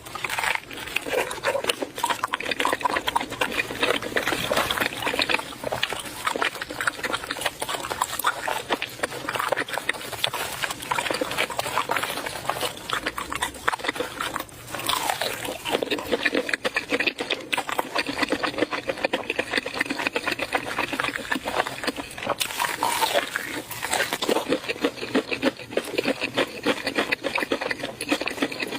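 Close-miked eating: continuous wet chewing and lip-smacking, a dense run of rapid clicks.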